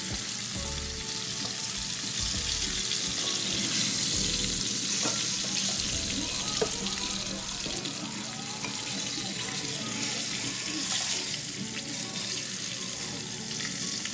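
Black cod cooking in a pan, giving a steady sizzling hiss, with faint music underneath.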